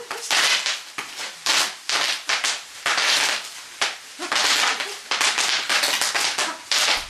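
Sheets of bubble wrap twisted and wrung by hand, bursting in a dense, irregular run of sharp pops and crackles.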